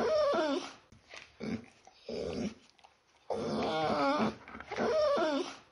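A dog whining and grumbling in wavering, pitched moans, in several bouts; the same run of moans comes round a second time, and the sound cuts off suddenly at the end.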